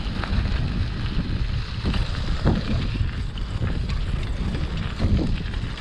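Wind buffeting a chest-mounted GoPro's microphone while cycling: a steady low rumble with a few soft thumps.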